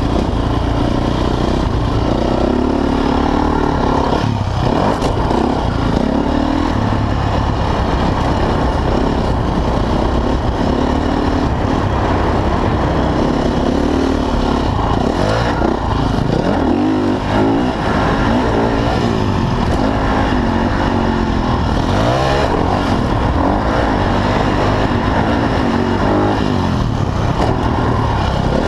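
Motocross dirt bike engine at race pace, heard from on the bike, rising and falling in pitch over and over as the rider throttles on and off through the track's jumps and turns.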